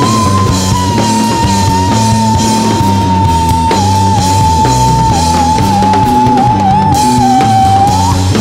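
Rock band playing live: drums and electric bass keep a steady beat under electric guitar, while one long high note is held over the band for about eight seconds, sinking slightly in pitch and wavering near the end before it drops away.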